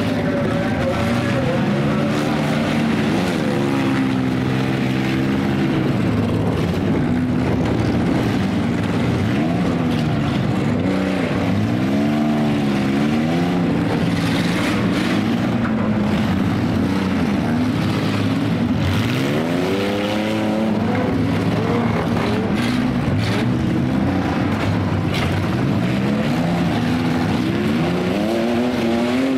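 Several demolition derby cars' engines running and revving at once, their pitches rising and falling as the drivers accelerate and back off, with a few sharp bangs of cars colliding about halfway through.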